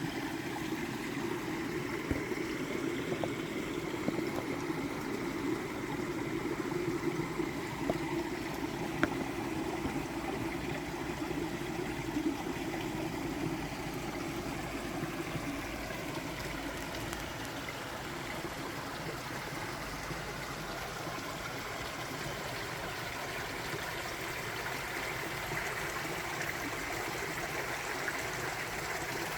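Steady running water of a forest stream, with a few faint ticks over it.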